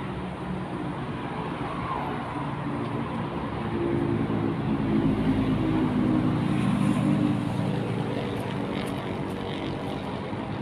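Road traffic: a motor vehicle's engine swells to its loudest around the middle and fades away again, over a steady bed of road noise.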